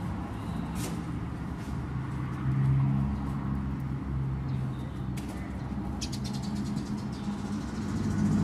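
A low, steady mechanical drone like a nearby engine, with a few short, high sparrow chirps over it, including a quick run of them about six seconds in.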